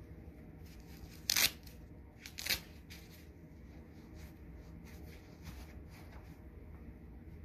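Brief rustling, scraping handling sounds off to one side: two louder rasps about a second apart early on, then only faint scattered ticks.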